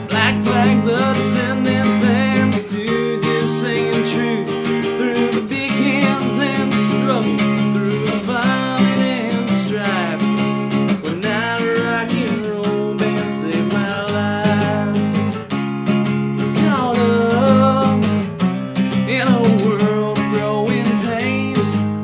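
Acoustic guitar strumming chords at a steady rhythm in an acoustic rock song, with a melodic line gliding over the chords in places.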